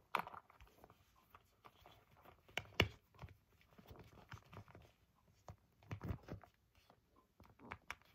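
Faint handling of a small leather clutch being closed over stuffed contents: scattered soft taps and rustles, with the sharpest clicks about three seconds in and another cluster around six seconds.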